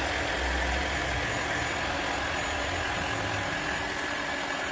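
Heat gun running steadily, drying freshly brushed-on stain on a wooden drawer front: a constant rush of blown air and fan noise with a faint high whine.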